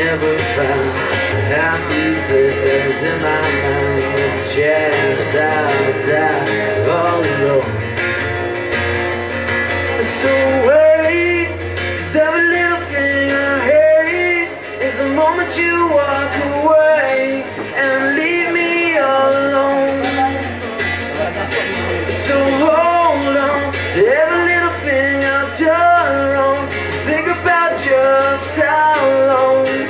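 A cutaway acoustic guitar strummed steadily, with a man's singing voice coming in over it about ten seconds in and carrying on to the end.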